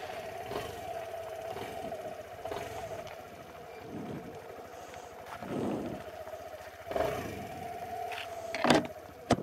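Cruiser motorcycle engine idling, a steady hum with a slight waver. A few knocks and bumps about halfway through and near the end, the loudest near the end.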